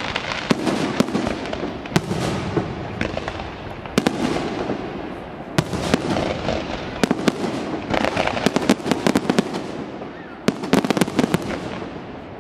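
Fireworks display: aerial shells going off in a steady run of sharp bangs over a continuous crackle. Two rapid volleys of bangs come about eight and ten and a half seconds in, and the noise dies down near the end.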